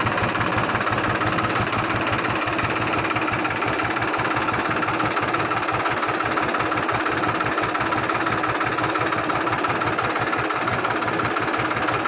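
Mahindra 265 DI tractor's direct-injection diesel engine idling steadily with an even low beat, running hot. The owner suspects a blocked coolant hose is causing the overheating.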